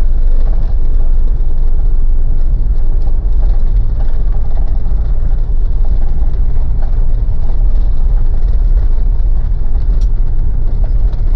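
Mitsubishi Pajero's 4M41 turbodiesel and tyres heard from inside the cabin while driving, a loud, steady, low rumble.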